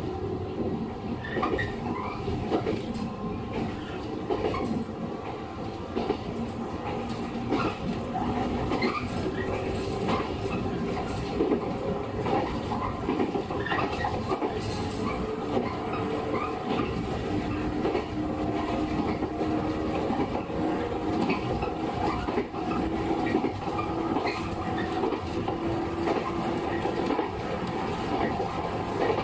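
JR 115 series electric multiple unit running, heard from inside the carriage: a steady rumble with faint humming tones and many short knocks and clicks from the wheels on the track.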